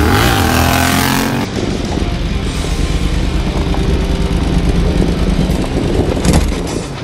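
Yamaha XSR700's parallel-twin engine running under way as the bike rides past, its pitch shifting. About a second and a half in, the sound changes abruptly to a closer, rougher, lower engine rumble, with a brief louder burst near the end.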